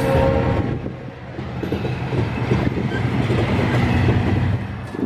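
Diesel-hauled freight train passing close by, with a low locomotive engine drone and the rumble and clatter of wheels on the rails. The last of a horn blast dies away in the first half second.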